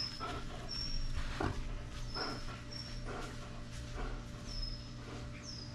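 A dog whining in short, high-pitched whimpers, about six spread over a few seconds, some dropping slightly in pitch, over a steady low hum.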